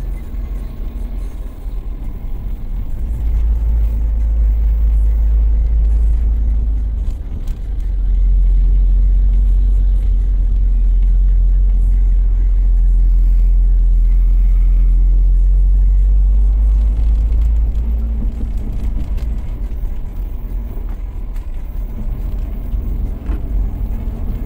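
Low rumble of a moving road vehicle, with a steady engine hum over it. It grows louder about three seconds in, dips briefly around seven seconds, and eases off again around seventeen seconds.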